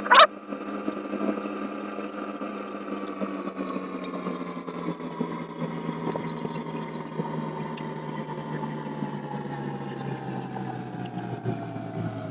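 A steady machine hum whose pitch slowly falls, with a sharp click right at the start.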